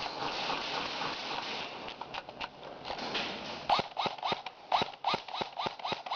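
Rustling and scraping of gear as a player moves. Then, from a little past halfway, a quick string of about ten sharp airsoft gun shots, roughly four a second.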